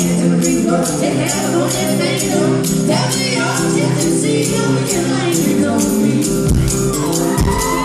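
Live folk-rock duo performing: a woman singing over a strummed acoustic guitar, with drums keeping a steady beat, heard from the audience.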